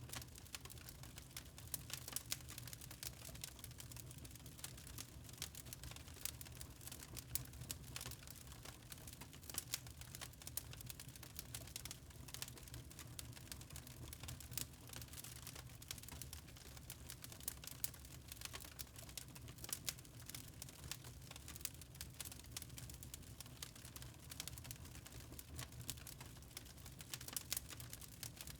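Wood fire in a fireplace crackling, with many small irregular pops over a low steady rumble.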